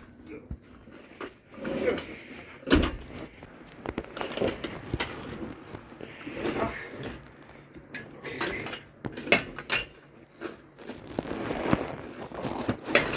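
Irregular clunks, knocks and scrapes of a heavy stripped-down 351 Cleveland engine being shoved and levered over a ridge.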